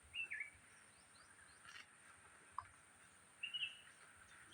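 A bird calling twice with short chirps, once at the start and again about three and a half seconds in, over faint outdoor ambience.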